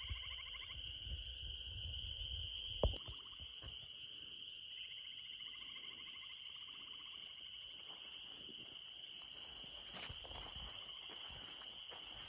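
Insect chorus: a steady high-pitched drone, with pulsed trilling calls that come and go. A low rumble in the first few seconds and one sharp knock about three seconds in.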